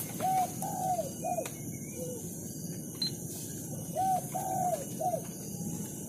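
Spotted dove cooing: two phrases of three short arched coos, one near the start and one about four seconds in, with a single lower coo between them, over a steady background hiss.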